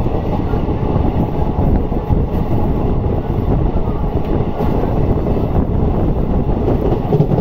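Steady rumble of a passenger train running along the track, heard from on board through an open window.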